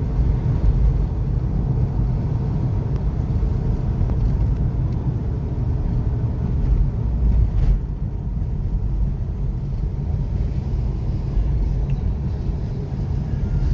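Steady low rumble of a moving car's engine and road noise as it climbs a long hill.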